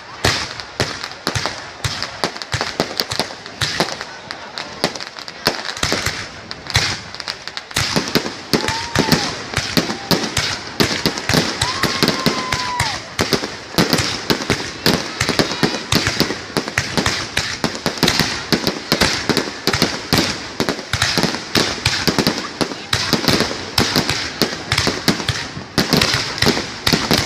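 Fireworks display: a dense, continuous barrage of bangs and crackling pops, several a second, with no let-up.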